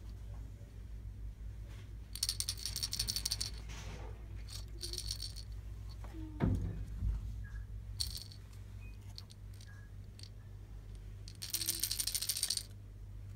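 Rattle inside a Baby GUND plush safari animal toy shaken in four short bursts, with a soft thump of handling a little past halfway.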